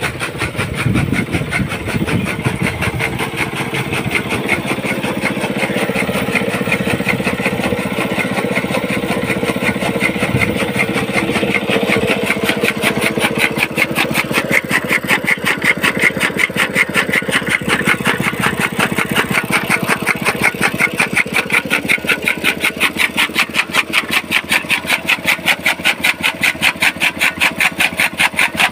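Small petrol engine running a belt-driven chaff cutter, whose spinning bladed flywheel chops green fodder stalks in a fast, even rhythm over the engine's steady running.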